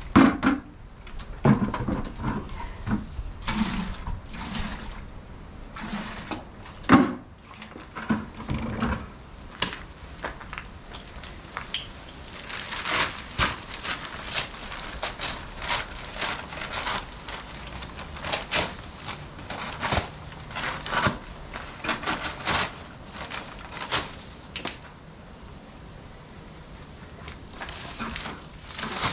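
Irregular rustling, scraping and knocks as dry mortar mix is scooped out of its paper bag into a plastic bucket. There are dull knocks in the first few seconds and denser crackling rustles through the middle.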